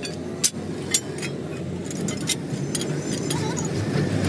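Irregular sharp metallic clinks and taps, as of hand tools on truck parts, the strongest about half a second in, over a steady low hum.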